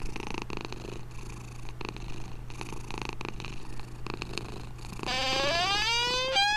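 Sleeping tabby kitten purring steadily. About five seconds in, a louder synthesized tone with several pitches glides upward like a siren.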